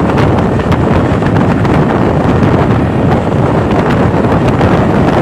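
Wind buffeting the microphone of a moving motor scooter, with engine and road noise underneath.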